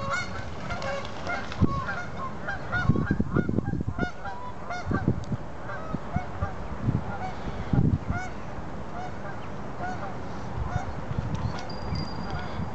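A large brood of Canada goose goslings peeping, many short high calls overlapping without a break, among adult Canada geese. A few low bumps stand out as the loudest moments, about three, five and eight seconds in.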